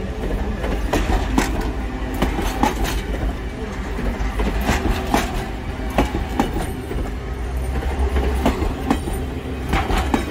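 Passenger coaches of a Reading & Northern excursion train rolling past close by, their wheels clicking and knocking irregularly over the rail joints above a steady low rumble and hum.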